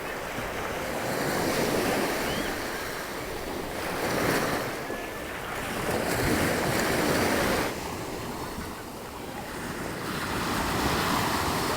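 Surf breaking on a beach, the rush of the waves swelling and fading every few seconds, with wind buffeting the microphone.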